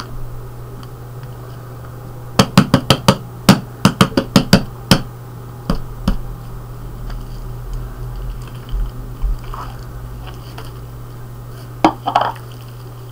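Plastic tub knocked about a dozen times in quick succession, roughly four or five a second, as the slime is shaken out of it. A few more single knocks follow, with a pair near the end, over a steady low hum.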